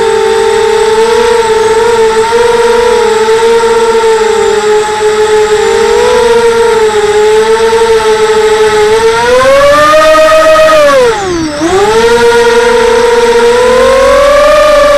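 Mini FPV quadcopter's electric motors and propellers whining close to the onboard camera, the pitch wavering as it flies. About nine seconds in the whine climbs, then drops sharply for a moment about eleven seconds in and climbs back.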